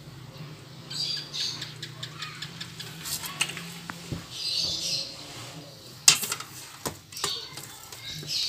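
Metal spoon clinking and scraping against an aluminium baking tray and pan as sticky brown-sugar cookie dough is scooped and dropped, with short wet squelches from the dough. The loudest clicks come about six seconds in and at the end.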